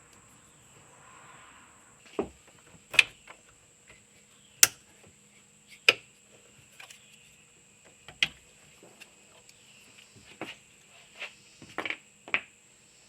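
Scattered sharp clinks and taps, about eight in all, from small metal parts such as terminal washers and hand tools being handled at a car battery's terminals.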